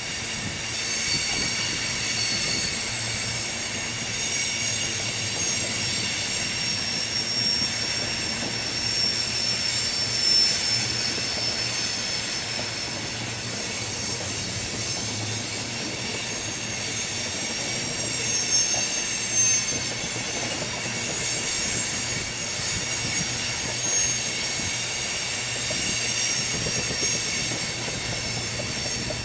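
Freight train of tank cars rolling past, its steel wheels squealing against the rails in steady, high, slightly wavering tones over the running noise of the train.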